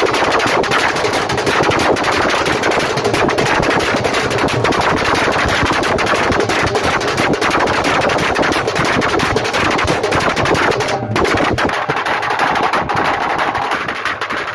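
Fast, continuous drumming on a rope-tensioned barrel drum (dhol), a dense stream of rapid strokes accompanying a diwari stick dance, with a brief break about eleven seconds in.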